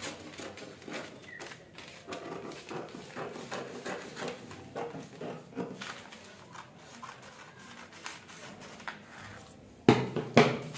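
Scissors cutting through layered paper pattern pieces, with irregular snips and paper rustling. Near the end come a few sharp, loud knocks.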